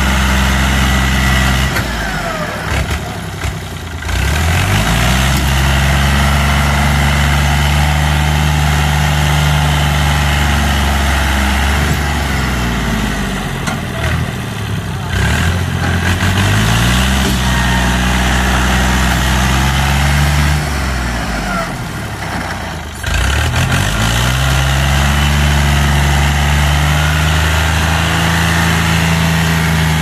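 Al-Ghazi tractor's diesel engine working hard to pull an overloaded sugarcane trolley. Its revs sag sharply three times, about 2, 13 and 21 seconds in, bogging under the load, and each time climb back to a high, steady pitch.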